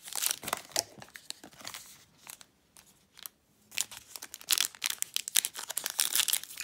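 Foil trading-card pack wrapper crinkling and tearing as it is handled and opened by hand, with a short quiet pause in the middle.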